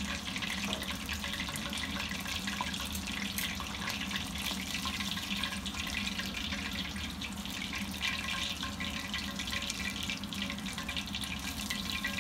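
Pieces of karaage (coated chicken thigh) deep-frying in oil in a cast iron skillet: a steady sizzle with fine crackling.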